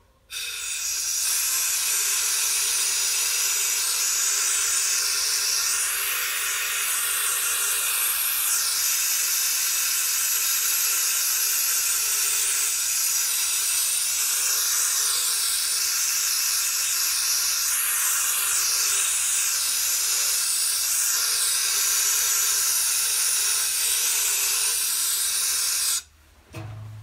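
Compressed air hissing steadily from a handheld air blow gun, blowing uncured powder coat off bolt threads before curing. The hiss starts just after the beginning, wavers slightly in pitch, and cuts off abruptly about a second before the end.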